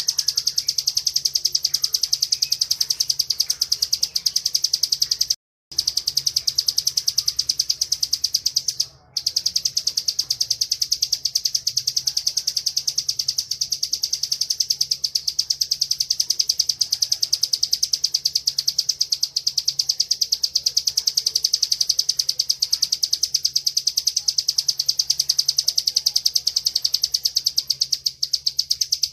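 Bar-winged prinia (ciblek) singing its rapid, unbroken high-pitched buzzing trill ('ngebren'). It breaks off briefly twice, about five and a half and nine seconds in.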